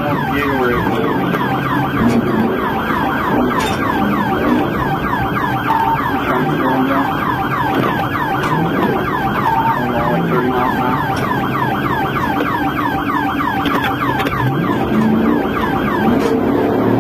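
Police car siren in fast yelp mode, rapid rising sweeps about four to five a second, over the road and engine noise of a cruiser at speed.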